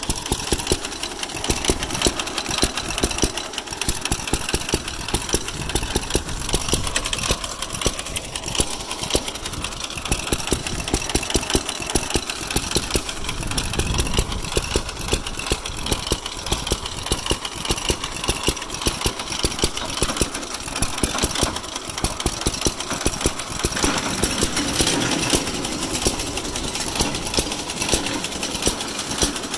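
Ideal lawn mower's hit-and-miss engine running, sharp firing strokes coming at uneven spacing with coasting gaps between them.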